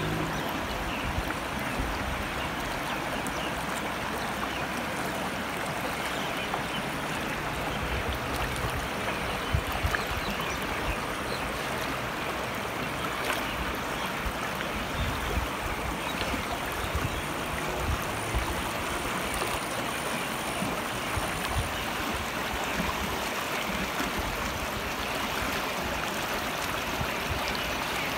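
A shallow, rocky mountain stream rushing over stones, with a steady, even sound of running water.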